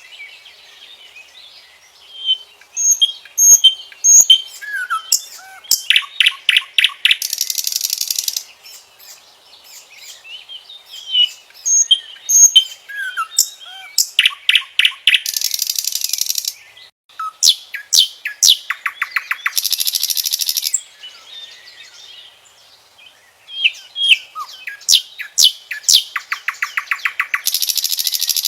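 Common nightingale singing: four phrases a few seconds apart, each made of whistled notes and fast runs of repeated notes and closing with a dry buzzing rattle.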